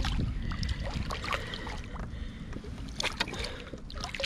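A hooked striper splashing irregularly at the water's surface beside the kayak as it is brought in, over a low rumble of wind on the microphone.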